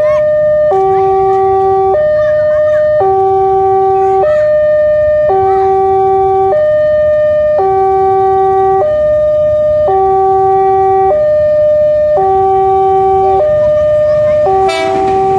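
Electronic railway level-crossing alarm sounding a steady two-tone pattern: a low chord and a single middle tone alternate, each held about a second. Near the end a sharp clatter and the rising noise of an approaching electric commuter train come in.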